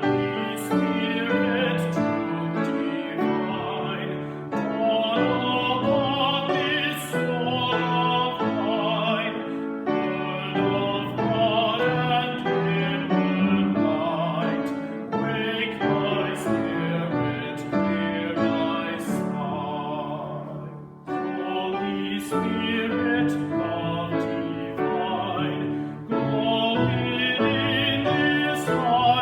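Sung church music: a voice singing with vibrato over piano accompaniment, in phrases of a few seconds each with short breaths between them.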